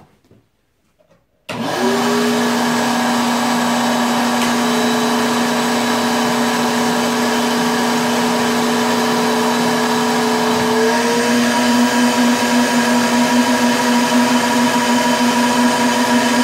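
Shop-Vac wet/dry vacuum switched on about a second and a half in and running steadily, pulling suction through a vacuum former's table to draw a heated plastic sheet down over the moulds. Its pitch rises slightly about eleven seconds in.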